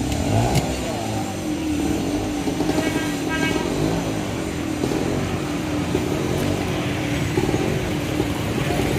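Street ambience: motor vehicles, motorcycles among them, running and passing, with people talking in the background.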